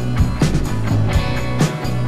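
Background rock music with a steady drum beat over a deep bass line.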